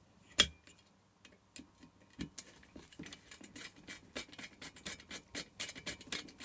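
Screwdriver turning a bolt into the heater's aluminium burner casing. One sharp click, then from about two seconds in a quick, even ticking of about four clicks a second as the driver is turned.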